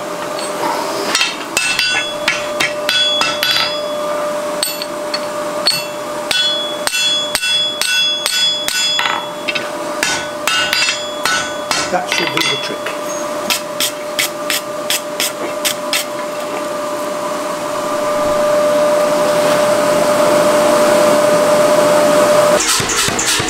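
Blacksmith's hammer striking a red-hot wrought iron bar on an anvil and hardy, splitting the bar's end into a fork. The blows ring and come irregularly at first, then in a quick even run of about three a second. A steady hum under the hammering grows louder near the end.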